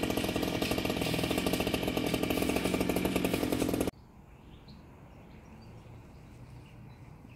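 Chainsaw running steadily while pruning a tree, with a fast, even buzz that stops suddenly about four seconds in. Afterwards only a quiet outdoor background with a few faint bird chirps.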